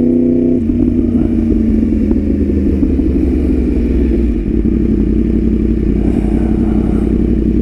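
2018 Yamaha R1's crossplane inline-four engine running under way. The note is steady at first and changes about half a second in, then carries on with a brief dip in level about four and a half seconds in.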